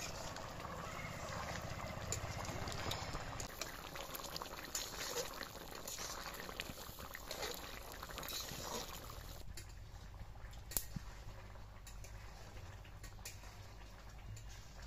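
Chicken curry bubbling and sizzling in an iron karahi, with a metal spatula scraping and clicking against the pan as it is stirred. About nine and a half seconds in the sound drops suddenly to a quieter background with a low hum and a few sharp cracks, the loudest near eleven seconds.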